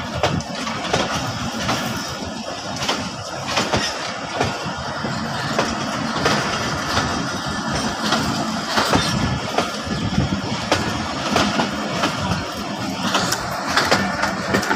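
Pakistan Railways passenger coaches rolling past as the train departs: a steady rumble with the wheels clicking and clattering irregularly over the rail joints.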